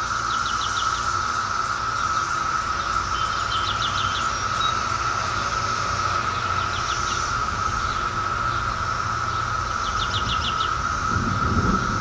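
Chorus of Brood X periodical cicadas: a steady, unbroken droning whine. Three times, a short run of quick high ticks sounds over it.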